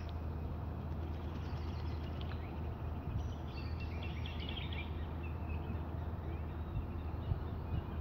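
Steady low rumble of wind on the microphone, with bursts of high, quick bird chirps between about one and five seconds in.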